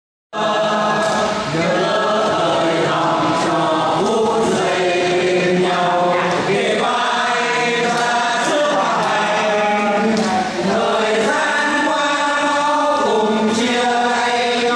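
A man and a woman singing together into microphones over a PA system, in slow, long held notes.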